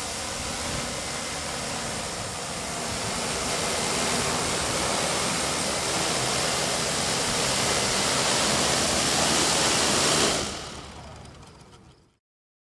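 Draganflyer X6 hexacopter's electric rotors whirring steadily in flight, growing gradually louder as it comes close, then fading away to silence near the end.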